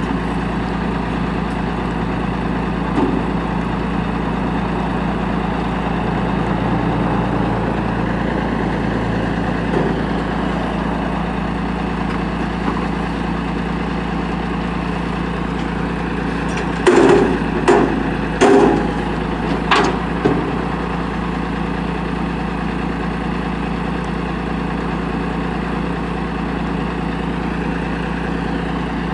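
Diesel engine of a 1986 Peterbilt 310 Amrep Octo front-load garbage truck running steadily while its hydraulic arms lift a dumpster over the cab. About two-thirds of the way through, four or five loud bangs come as the dumpster is tipped and shaken out into the hopper.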